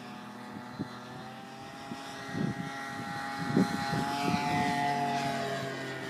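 Engine and propeller of a radio-controlled scale Sopwith biplane making a low flypast. The steady droning tone swells to its loudest about four to five seconds in, drops slightly in pitch as the plane passes, then fades. A few low thumps sound underneath.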